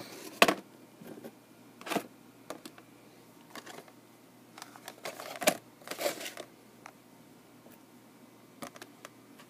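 Handling noises from die-cast model airliners and their cardboard boxes being moved about on a wooden desk: a few separate knocks and light clatters, the sharpest about half a second in and at two seconds, with a small cluster around five and a half to six seconds.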